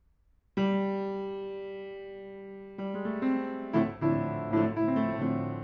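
A 1988 Yamaha P112 upright piano being played: about half a second in, a loud chord is struck and left to ring, fading slowly, then from about halfway through a quicker series of notes and chords follows and rings on.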